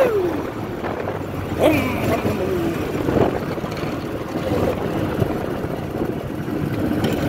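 Go-kart engine running, its pitch dropping in short falls a few times as the kart slows, then settling to a steady hum.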